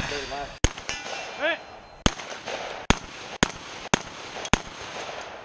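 A competition long gun fired six times at uneven intervals, half a second to a second and a half apart, as the shooter works through targets. A brief metallic ring follows the first shot.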